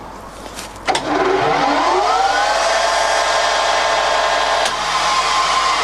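Colchester Student 1800 lathe started with a click, its headstock gears whining up in pitch as the spindle spins up to its top speed of 1800 rpm, then running steadily. Near the end another click, and the whine thins a little.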